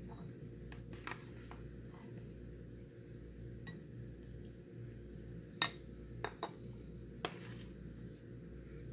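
Dishes and cutlery clinking: a handful of separate light knocks with a short ring, the sharpest a little past halfway and a quick cluster of three after it, over a steady low hum.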